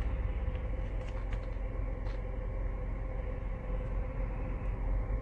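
Steady low rumble of a car running, heard from inside the cabin, with a faint steady hum over it.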